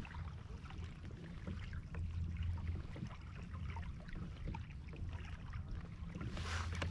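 Small water splashes and ticks against a plastic kayak hull moving over calm water, over a steady low rumble. A brief louder swish of water comes near the end.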